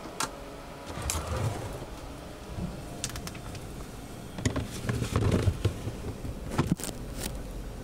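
Wood-panelled fridge door clicking open and a plastic crisper drawer being pulled out, with several sharp clicks and low rattling knocks from the handling over a steady background noise.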